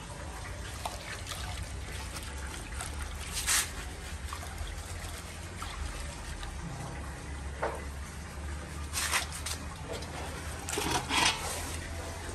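Water sloshing and dribbling in a steel basin as a tra catfish is scrubbed by hand with leaves to wash off its slime, with a few short splashes. Near the end the basin's water is dumped out and splashes onto concrete.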